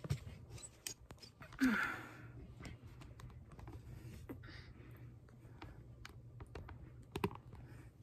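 Scattered light clicks and knocks of a camera being handled and repositioned on an overhead tripod arm, with a louder handling noise about two seconds in and a couple of sharper clicks near the end.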